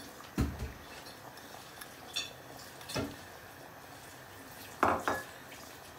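Five or so short knocks and clinks of kitchenware as a glass bowl of chopped chillies and coriander is tipped and tapped over a cooking pot. The loudest pair comes near the end. One clink has a brief glassy ring.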